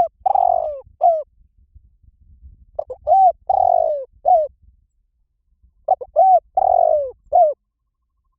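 Spotted dove cooing: a short phrase of a few clipped coos and one longer falling coo, repeated three times about three seconds apart, with the first phrase already underway at the start.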